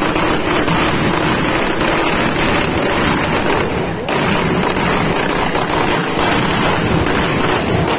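Ground-level fireworks going off close by: a loud, continuous, dense crackle of rapid bursts with no let-up.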